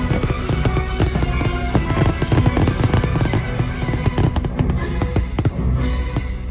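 Rapid crackling and popping of fireworks bursting over loud orchestral show music, the crackle thinning out near the end.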